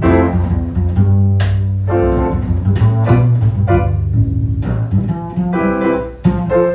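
Acoustic piano and upright double bass playing an instrumental jazz passage, the bass holding low notes under piano chords.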